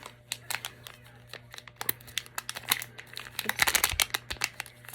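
Packaging of a mystery pin blind box crinkling and tearing as it is opened by hand: a run of quick, sharp rustles and clicks, busiest about three and a half seconds in.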